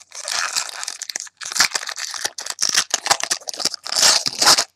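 2011 SP Authentic football card pack's wrapper crinkling and crackling as it is torn open and pulled apart, with a brief pause just over a second in.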